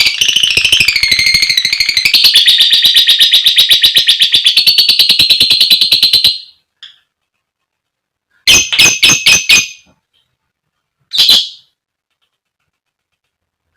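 Female lovebird giving a long ngekek, a shrill, rapid chattering trill of fast repeated notes lasting about six seconds. After a pause come a quick burst of about five sharp chirps and then a single chirp.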